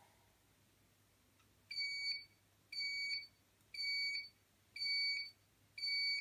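Golden Malted waffle baker's countdown timer beeping five times, about once a second, each beep a short steady high tone. The three-minute baking time is up and the waffle is done.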